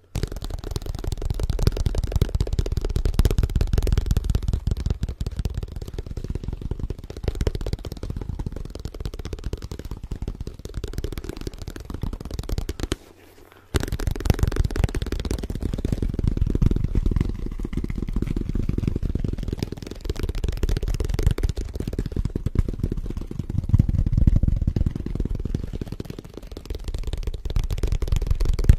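Very fast fingertip tapping on a leather duffel case held close to the microphone: a dense stream of dull, low thuds that stops for under a second about 13 seconds in, then resumes.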